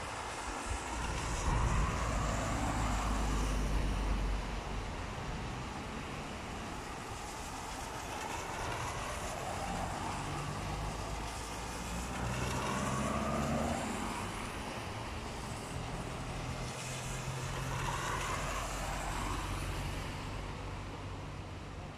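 Cars and vans passing one after another on a wet road, tyres hissing through the water over a low engine rumble. Each pass swells and fades, four in all, the loudest about two seconds in and another near the middle.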